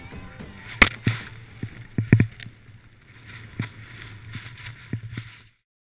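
On-board camera sound of skiing through deep powder snow: a steady low hum with irregular sharp knocks and clacks from the skis and poles, cutting off suddenly about five and a half seconds in.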